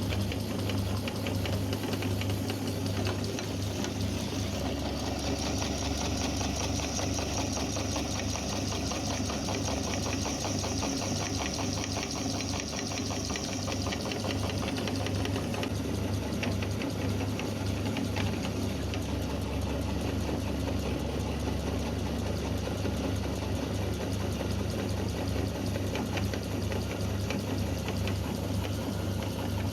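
Electric meat grinder running steadily, grinding soap, its motor humming under a fast mechanical rattle. A thin high whine joins in from about five to fourteen seconds in.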